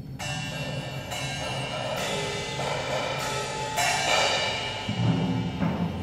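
School percussion ensemble playing: a series of ringing metallic strikes, about one a second, each left to ring on, then timpani rolling in near the end.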